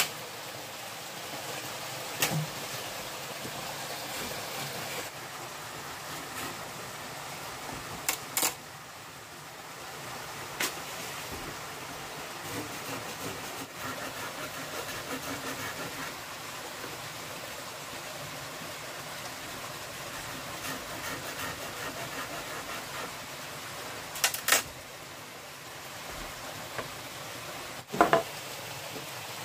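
Steady rush of a small stream, with a few sharp knocks scattered through, several of them in close pairs.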